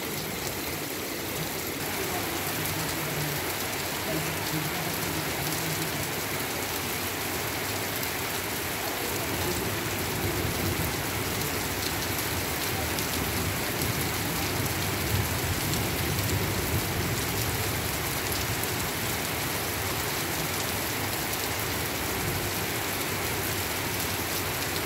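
Heavy, torrential rain falling steadily on a wet paved street, a dense even hiss of drops splashing on the pavement.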